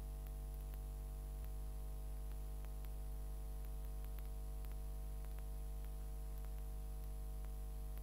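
Quiet background music over a steady low hum, with faint scattered clicks.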